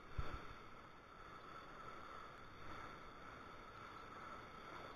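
Small waves breaking and washing up a sandy beach, faint and steady. A couple of brief low thumps just after the start.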